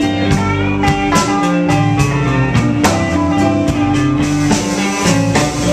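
Live blues band playing an instrumental passage: guitar lines to the fore over bass and a drum kit keeping a steady beat.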